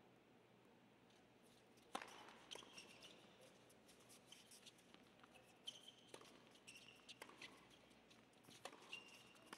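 A faint doubles tennis rally: the ball is struck by rackets several times, starting about two seconds in, with tennis shoes squeaking on the hard court between the hits.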